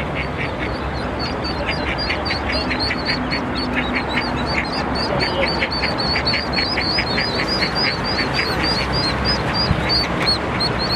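Ducklings peeping in a fast, continuous string of high calls, about four a second, over steady road traffic noise.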